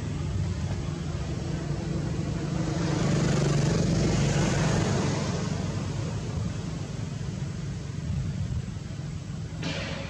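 Engine rumble of a passing motor vehicle, growing louder a few seconds in and then fading away, with a brief hiss just before the end.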